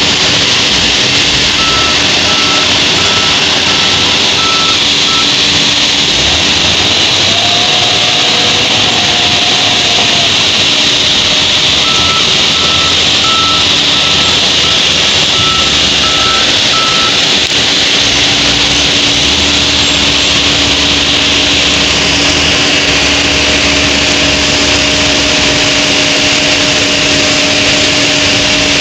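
Diesel engines of a Lovol wheel loader and a Hino dump truck running steadily under load. A reversing alarm beeps about once a second, starting about two seconds in for a few seconds and again from about twelve seconds in for about five seconds.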